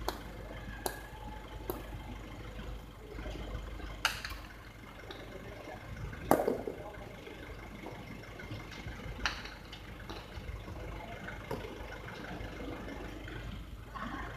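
A hard jai alai ball (pelota) bouncing on the concrete court floor three times, then sharp cracks of the ball off the wall and floor during a rally, one every two to three seconds, the loudest about six seconds in. A steady low rumble runs underneath.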